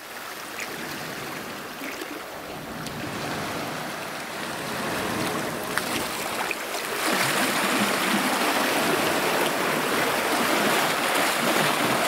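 Steady rush of washing sea water, louder from about seven seconds in.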